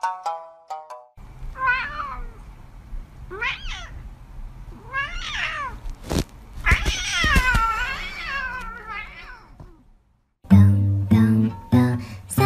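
A cat meowing: three short meows about two seconds apart, then a longer, wavering meow that rises and falls. Plucked-string music plays briefly at the start and comes back near the end.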